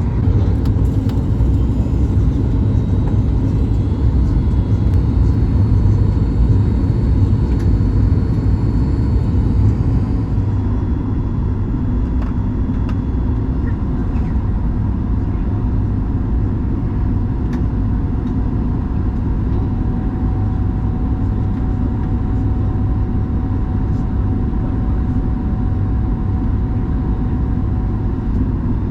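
Steady low rumble of a Boeing 737-9 MAX's engines and airflow, heard inside the cabin. It eases slightly about ten seconds in.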